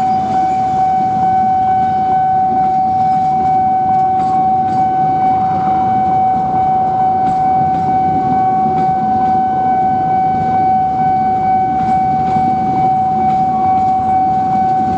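Train of stainless-steel passenger carriages rolling past on the rails with a continuous low rumble, and a steady high-pitched tone sounding over it the whole time.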